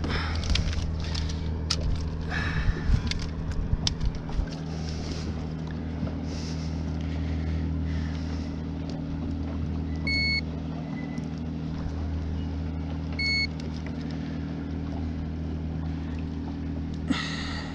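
Handheld digital fish scale beeping twice, each a short electronic tone about three seconds apart, as it weighs a bass. Under it runs a steady low motor hum, with clicks and knocks of handling in the first few seconds.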